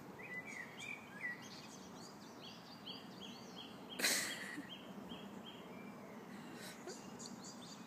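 Small birds chirping, with a quick even series of chirps, about three a second, in the middle. About four seconds in there is one brief sharp noise, the loudest sound.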